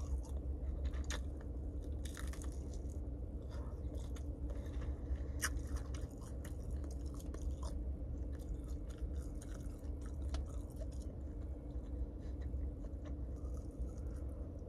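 A person chewing and biting into chicken close to the microphone, with irregular crisp crunches, over a steady low hum.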